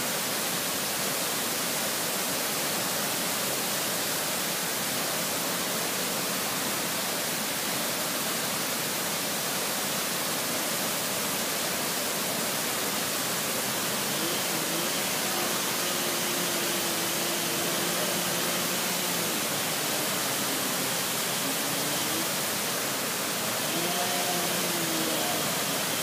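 Large waterfall: falling water rushing in a steady, even hiss, unchanging throughout.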